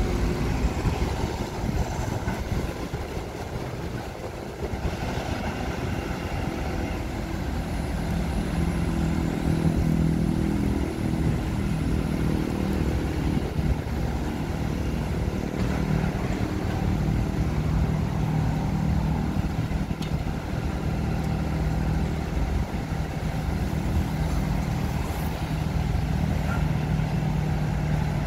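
Diesel engine of a hydraulic excavator working as it digs, a steady low engine drone that settles into a held hum about eight seconds in and again from about a quarter of the way through to the end.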